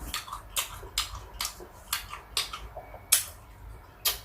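Close-up chewing of crisp sour fruit: a run of wet crunches, about two a second.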